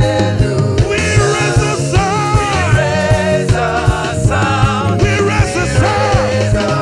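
Upbeat gospel praise music: a live band with a steady drum beat and bass under singing voices.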